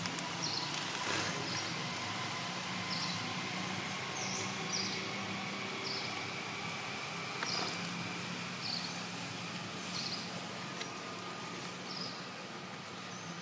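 Outdoor ambience: a short, high chirp repeating about every second and a half over a steady low hum and background hiss.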